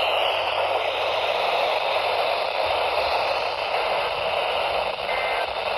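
Steady hiss of static from a weather radio receiver, with a brief faint two-tone data burst near the end.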